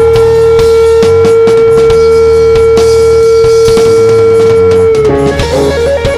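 Live rock band playing an instrumental passage: an electric guitar holds one long sustained note over drums and bass, then breaks into quick repeated notes about five seconds in.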